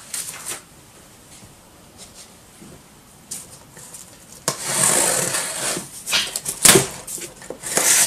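Cardboard boxes scraping and rubbing against each other as an inner parts box is shifted inside a shipping carton. Mostly quiet at first, then a sharp knock about halfway in starts a loud stretch of scraping, with two more loud scrapes near the end.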